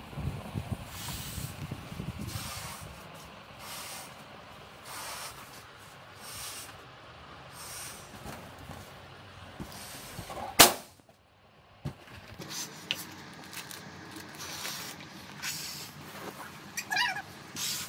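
Latex balloons being blown up by mouth: repeated puffs of breath pushed into the balloon, roughly one every second or so. A single sharp bang about ten and a half seconds in is the loudest sound.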